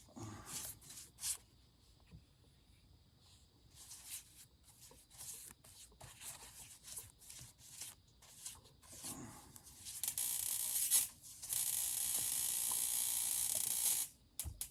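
Finish being worked onto a burl wood stick: a string of short, rough, hissing strokes, then a steady hiss lasting about four seconds near the end.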